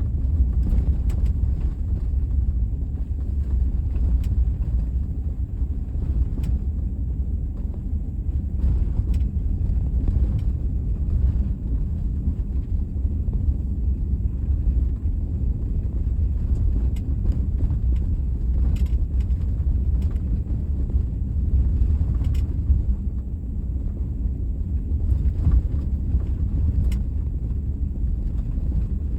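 Car driving over a bumpy road: a steady low rumble with irregular sharp clicks and knocks scattered through it, the unwanted noise the car makes over bumps.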